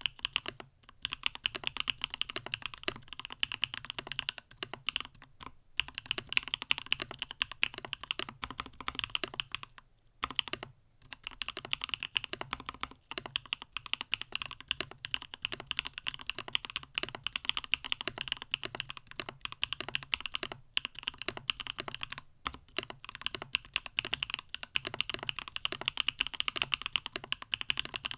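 Continuous fast typing on a stacked-acrylic CannonKeys StackedTKL mechanical keyboard with Gateron Smoothie linear switches: a dense stream of key clacks with a few short pauses, the longest about ten seconds in.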